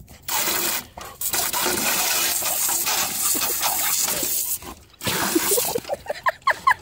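Water jetting from a garden hose spray nozzle into a metal bucket and onto a dog's snapping mouth: a steady, loud spray hiss with splashing that drops out briefly about a second in and again shortly before five seconds. Near the end a quick run of short squeaky rising notes cuts through the spray.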